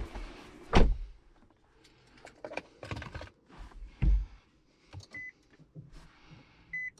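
Handling noises inside a Nissan Leaf's cabin: a heavy low thump about a second in and another about four seconds in, with scattered clicks between. Near the end, short high beeps from the car, repeating about every second and a half.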